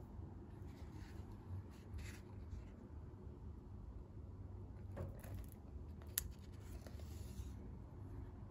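Faint rustling and handling of card and paper pages as a small handmade book is held and a page is turned, with one sharp tick about six seconds in, over a low steady hum.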